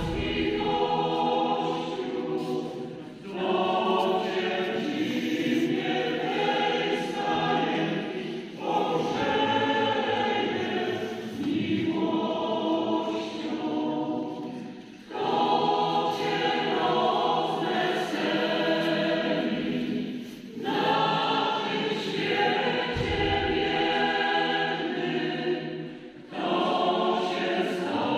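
Church choir singing a Polish Christmas carol (kolęda) in phrases of a few seconds each, with brief breath pauses between them.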